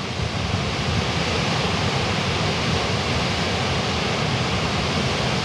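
Goðafoss waterfall rushing, a dense even hiss of falling water that swells a little in the first second and then holds steady.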